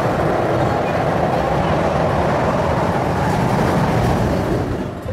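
Roller coaster running on its track: a steady, loud rumble that fades near the end.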